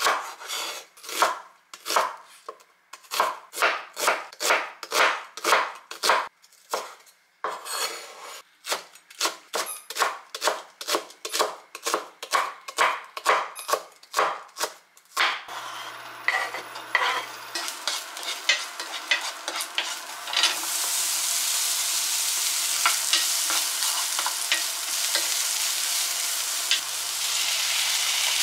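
Ceramic-coated kitchen knife chopping, first red onion and then green onion, on a bamboo cutting board at about two cuts a second, with a short pause about halfway through the chopping. The chopping stops about 15 seconds in. Then the vegetables sizzle in hot oil in a frying pan, louder from about 20 seconds in, with light clicks of a utensil against the pan.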